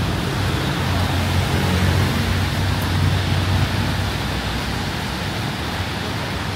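Heavy rain falling steadily, with a low rumble that swells between about one and four seconds in and then fades.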